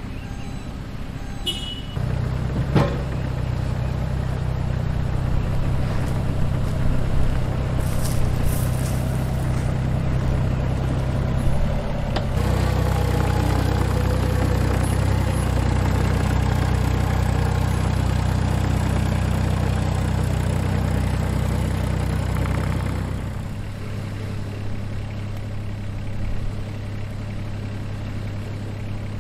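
A heavy vehicle engine starts running about two seconds in and works harder and louder for roughly ten seconds. Near the end it drops back to a steady idle.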